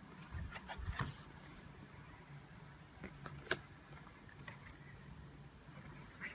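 Pages of a paperback colouring book being turned by hand: soft paper rustles and flicks, the sharpest about halfway through, over a faint steady low hum.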